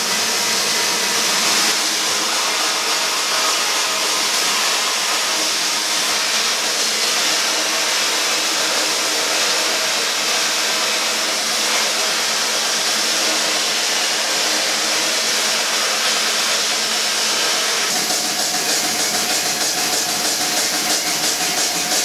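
Steady hissing machine noise, even throughout, with a lower hum joining near the end.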